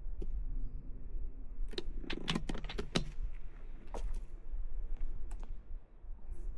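A quick run of about eight sharp mechanical clicks and rattles over a second or so, then a few single clicks, over a steady low rumble. These are the clicks of handled equipment, not shots.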